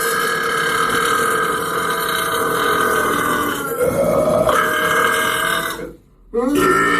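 A man burping: one long belch lasting about six seconds, its pitch shifting briefly about four seconds in, then a short break and another belch starting near the end.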